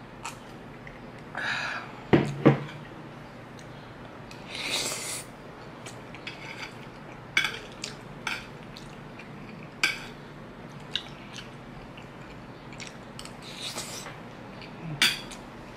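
Eating sounds: two loud knocks about two seconds in, then a metal spoon clinking and scraping on a ceramic plate in sharp clicks several times, with chewing between.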